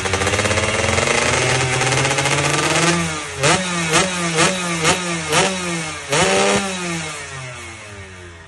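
Motorcycle racing engine revved hard, then blipped about seven times in quick succession, the revs jumping up and falling back each time, before dropping away near the end.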